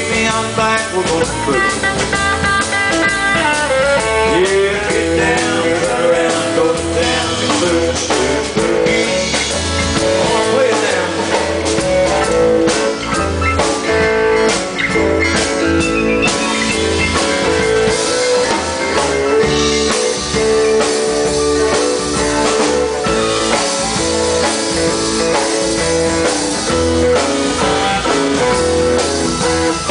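Live country band playing an instrumental break with an electric guitar lead over a drum kit beat.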